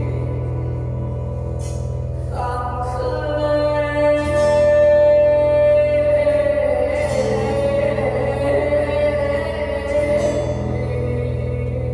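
Live music: a woman singing through a microphone over a steady low drone. She holds one long note from about two seconds in until about six seconds in, then moves on to further sustained notes.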